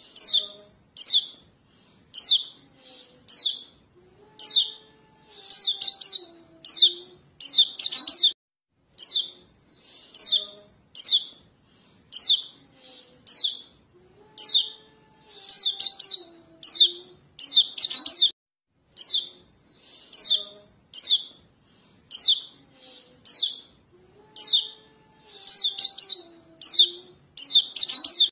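Fledgling yellow-breasted white-eyes (kecial kuning) begging: short, high chirps come one to three at a time about every second, over a faint lower gliding whistle. The same sequence repeats about every ten seconds, as in a looped lure call of young birds calling their parents, used to draw adult white-eyes in for trapping.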